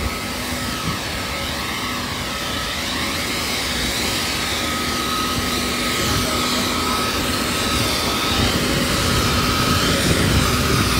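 Jet engine running with a steady whine over a rushing noise, slowly getting louder.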